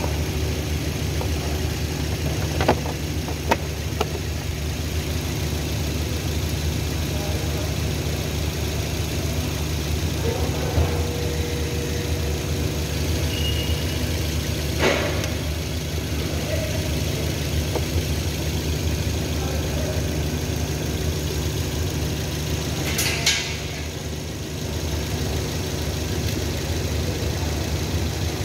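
Toyota Yaris engine idling steadily with its new ignition coil, running smoothly with the misfire cured. Several sharp clicks and knocks come from the plastic engine cover being handled and fitted, a few near the start, one midway and a louder one near the end.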